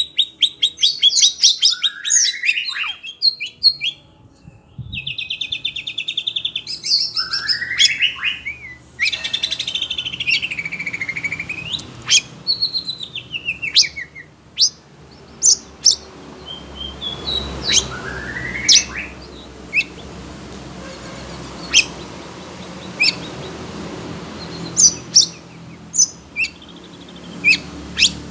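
Oriental magpie-robin (kacer) singing agitatedly: fast buzzy trills, rising whistled glides and sharp clicking notes in the first half, then sparser sharp calls.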